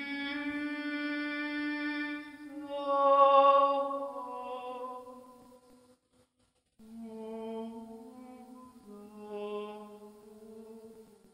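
Orthodox chant: voices sing long, held notes that swell loudest about three seconds in. The singing breaks off briefly about halfway through, then resumes on notes that step lower near the end.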